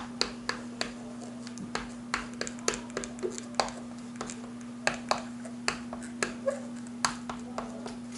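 Chalk tapping and scratching on a chalkboard as words are written: a quick run of sharp, irregular clicks, several a second, over a steady low hum.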